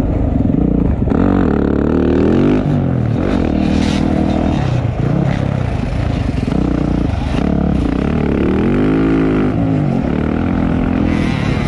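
Motocross dirt bike engines revving hard on the track, their pitch climbing and dropping through gear changes and throttle. One bike's pitch rises then falls about nine seconds in.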